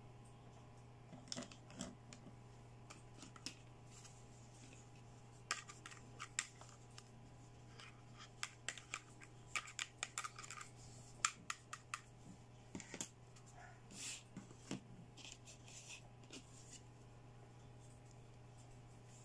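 Small hard-plastic toy accessories (bangles, toy hair dryers, a nail-shaped ring) clicking and tapping against each other as they are handled. Irregular light clicks, thickest around the middle, over a faint steady low hum.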